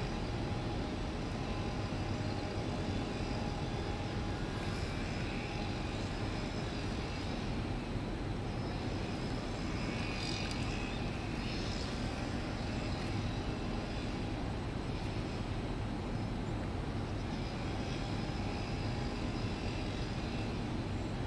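Steady background drone of brewery machinery, even in level throughout.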